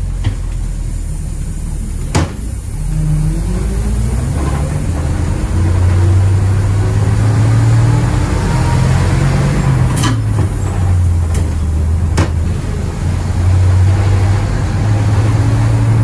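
The International Red Diamond 501 straight-six gas engine of a 1955 Gillig school bus pulling the bus along, heard from inside the cabin. It rises in pitch as it accelerates a couple of seconds in, then runs fairly steady. Several sharp knocks and rattles sound over it.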